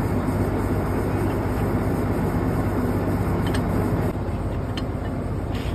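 Borewell drilling rig running: a steady, loud engine drone with a low hum. It drops slightly a little past halfway, and a few faint clicks come near the end.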